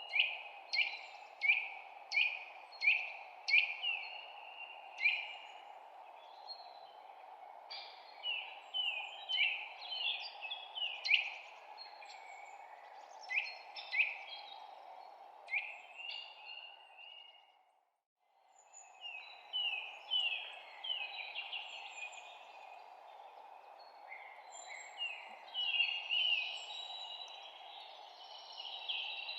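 Small songbirds chirping: quick, sharp, downward-sweeping chirps in runs, at first about two a second, over a steady background hiss. The whole sound fades out briefly about halfway through, then returns with more chirping.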